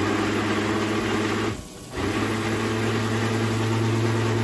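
Countertop blender motor running with a steady hum as it blends soaked dog kibble into puppy mush. It stops for a moment about a second and a half in, then starts again. The owner says the blender is acting funny.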